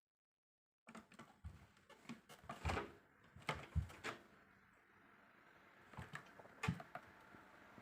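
A series of irregular soft knocks and thumps in a small room, starting about a second in, with the strongest near the middle and one near the end, over a faint steady hiss.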